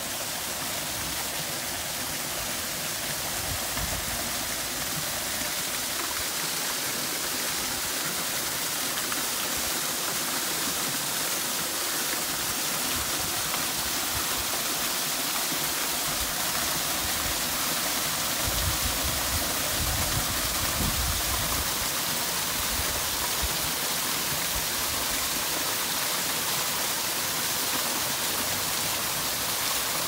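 Water from an artificial rock waterfall fountain splashing steadily down the rocks into a shallow pool.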